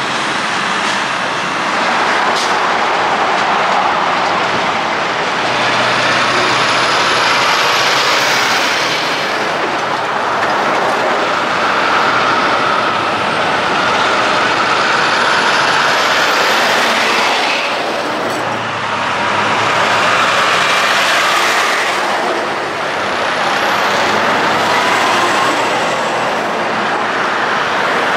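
Heavy road traffic with semi-trucks and cars going by: diesel engines and tyre noise swell and fade in waves as each vehicle passes.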